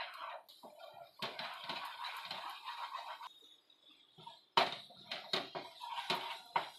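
Wooden spatula scraping and stirring a thick paneer and milk-powder burfi mixture around a non-stick frying pan. There is a short lull midway, and in the last two seconds there are a few sharp knocks of the spatula against the pan.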